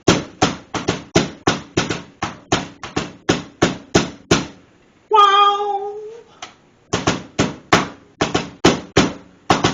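Meat tenderizer mallet pounding boneless pork loin on a counter, rapid steady strikes about three a second, beating the meat thin and puncturing it. About halfway the pounding pauses for a one-second held vocal cry, then starts again.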